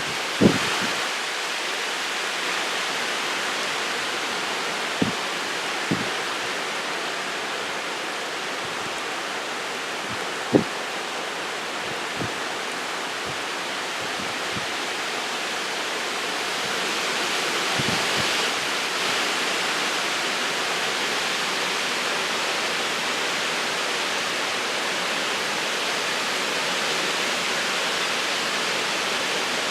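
Steady rain falling in wind, a continuous rushing hiss with a slight swell about two-thirds of the way in. A few single sharp taps, like heavy drops landing, stand out in the first half.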